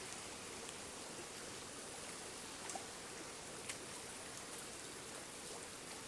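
Steady, even hiss of forest ambience, with a few faint scattered ticks and clicks.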